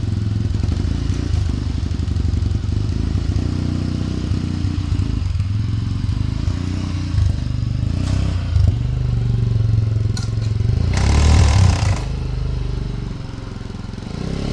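Motorcycle engine running steadily just after starting, with a louder stretch of noise about eleven seconds in.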